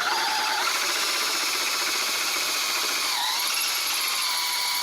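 Cordless drill with a larger bit boring through a metal plate: a steady motor whine that dips in pitch about three seconds in, then holds.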